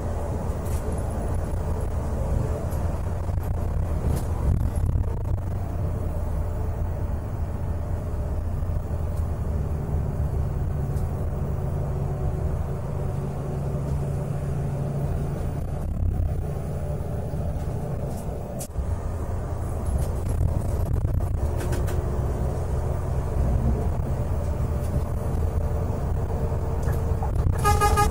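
Scania K410 coach's six-cylinder diesel engine and road noise heard from inside the cabin, a steady low drone while cruising. The horn sounds a few times in the second half, with a sharp blast just before the end.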